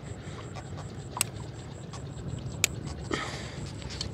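Small boat's engine running steadily with a low hum. Two sharp clicks come about a second apart, and a short rasping sound follows about three seconds in.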